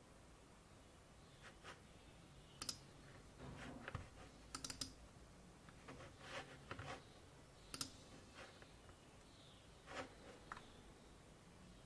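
Sparse, irregular key taps and clicks on a MacBook Pro laptop, coming a few at a time with short pauses between, over faint room hiss.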